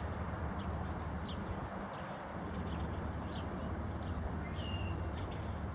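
Steady low outdoor background rumble with a few faint, short bird chirps and small scattered ticks.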